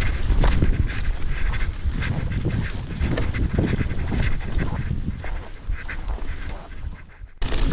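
Mountain bike rolling over rough granite rock, with the tyres, suspension and frame clattering and knocking and wind buffeting the microphone. The noise eases near the end and cuts out for a moment.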